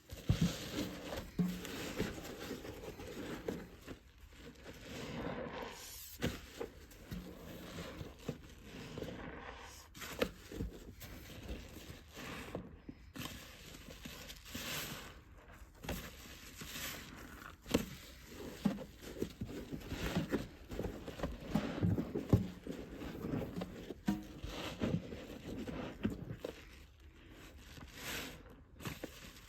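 A soapy wet sponge squeezed and worked hard over and over, in irregular strokes with occasional dull thumps, alongside heavy breathing.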